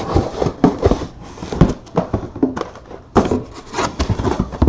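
Close handling noise: irregular knocks, rubs and scrapes of hands working against things right by the microphone.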